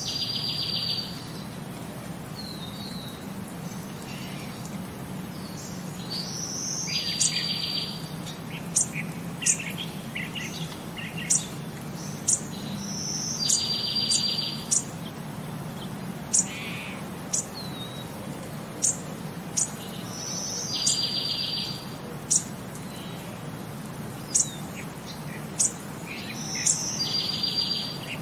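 Birds chirping: short sharp high chirps and a buzzy trill that recur in the same pattern about every six and a half seconds, as in a looped nature-sound backing track, over a steady low hum.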